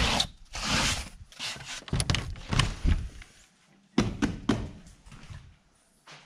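Boots thudding on a snowy wooden doorstep and aluminium threshold, then sharp clicks and knocks of an exterior door being opened about four seconds in.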